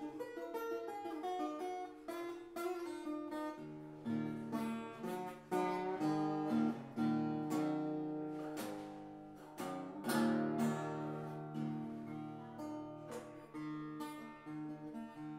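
Improvised acoustic guitar music on a koa-wood guitar: picked single notes over a bass line, broken by a few strummed chords.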